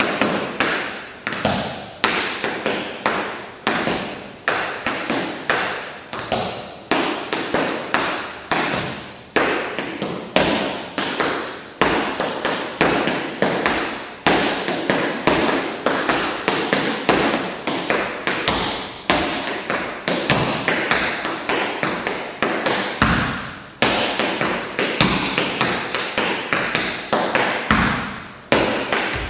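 Tap shoes' metal taps striking a dance-studio floor in fast, continuous rhythmic combinations of crisp clicks and heavier heel drops, with a few brief pauses.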